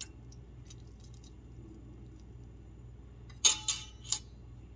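Kitchen utensils clinking against dishes, three quick clattery strikes with a short ring, about three and a half seconds in, over a low steady hum.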